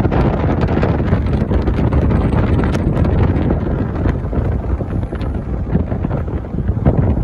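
Steady, heavy wind buffeting the microphone over the low rumble of a moving vehicle.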